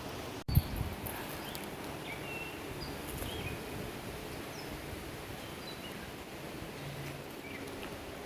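Outdoor ambience on a hiking trail with small birds chirping briefly here and there, and one sharp thump on the microphone about half a second in.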